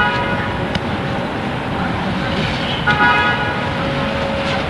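Car horns honking twice, each a short flat-pitched toot, about three seconds apart, with a lower horn tone held between them, over a steady rush of traffic noise.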